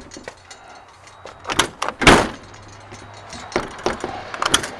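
Semi truck cab door being worked by hand: the latch and handle clunk and click several times, with the heaviest clunk about two seconds in.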